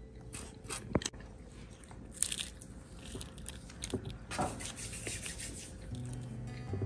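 Crunching bites into crisp fried snacks and chewing, with scattered small clicks and crackles, strongest about two seconds in and again past the middle. Background music comes in near the end.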